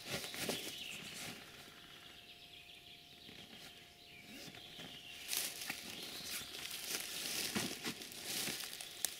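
Dry leaf litter and camouflage fabric rustling and crackling as a strapped bag is handled and set down against a tree trunk. The rustling comes in uneven bursts, quieter in the middle, with a sharp click near the end.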